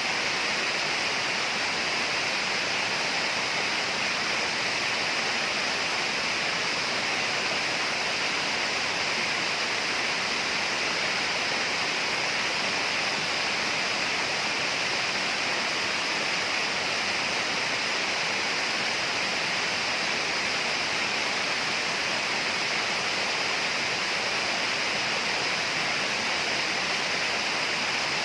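Steady tropical rainforest ambience: an even, unbroken rushing noise with a constant high hiss, unchanging throughout.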